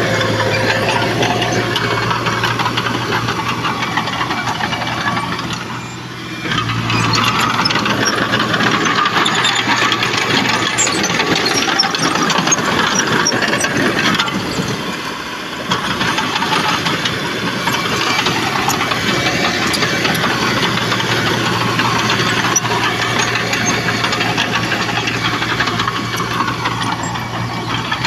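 Heavy diesel earthmoving machinery running steadily, its level dipping briefly twice, about six and fifteen seconds in.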